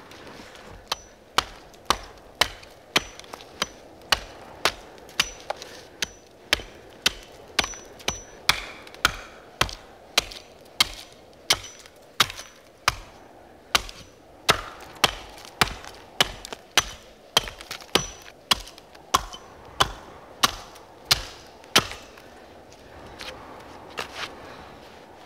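A carpenter's axe chopping a short upright piece of wood on a chopping stump: a steady run of sharp blows, about two a second, many with a short high ring after them. After a pause comes one last blow near the end.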